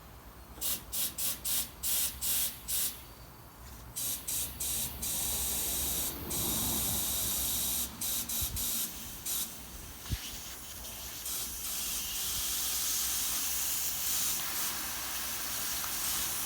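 Compressed air hissing into a garden tractor tyre through the valve stem with its core pulled out, to get more air in and seat the tyre on the rim: a quick run of short blasts, then longer and steady flow, with a single thump about ten seconds in.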